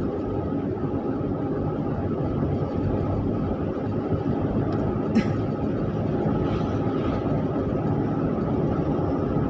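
Car driving along an open road: steady engine and tyre noise, with one short sharp click about five seconds in.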